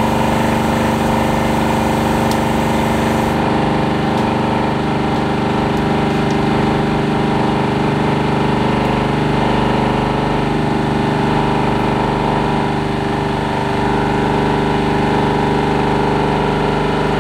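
Hydraulic press running with a steady pump hum as the ram presses down on an aerosol shaving gel can, with a few faint clicks.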